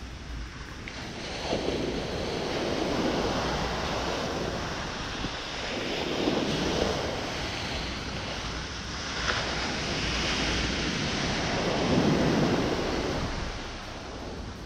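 Atlantic ocean surf breaking on a sandy beach, the wash swelling and fading three times as successive waves come in.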